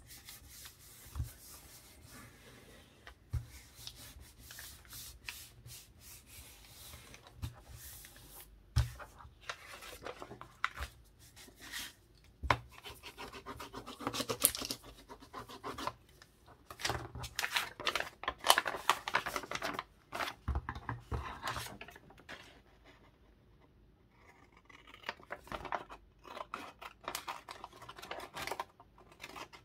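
Paper being worked by hand: irregular rubbing and rustling with snips of scissors and scattered light knocks, easing off for a few seconds past the middle.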